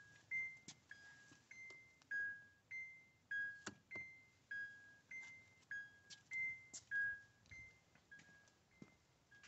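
The 2004 Acura TSX's electronic warning chime sounds in an alternating two-note beep, high then low, about one note every 0.6 s, growing fainter near the end. Scattered sharp clicks and knocks fall between the notes, the loudest about four seconds in and again near seven seconds.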